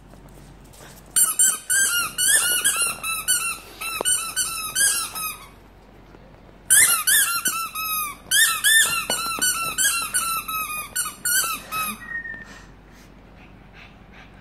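Squeaky rubber fire-hydrant dog toy being chewed by a small dog: quick runs of high-pitched squeaks in two long bouts of several seconds each, with a short pause between.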